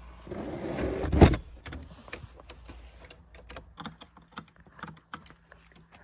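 A cabin door pulled shut with a thud about a second in, followed by a run of small clicks and knocks as the cabin is locked up.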